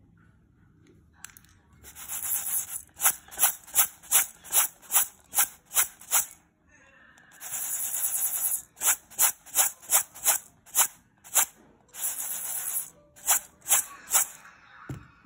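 Dry uncooked rice grains shaken and swirled in a stainless steel bowl to clean them. A hiss of grains sliding round the metal alternates with runs of sharp, regular shakes, about two or three a second, and there is a low thump near the end.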